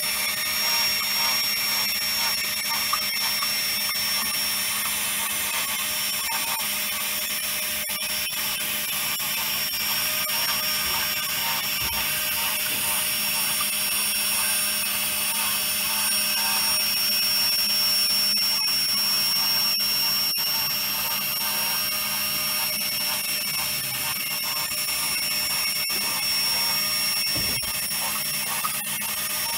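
Small pipe-crawling robot's electric drive motors whirring steadily, with a thin high whine over a low hum.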